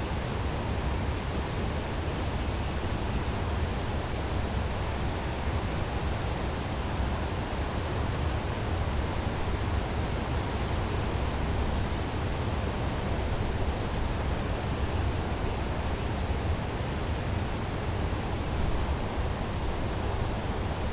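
Steady outdoor background noise, heaviest in a low rumble, with no distinct events.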